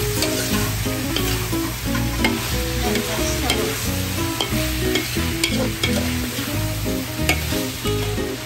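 Chicken pieces and chicken livers sizzling as they are stir-fried in a metal wok, with a metal spoon scraping and clicking against the pan at irregular moments. A light melody plays underneath.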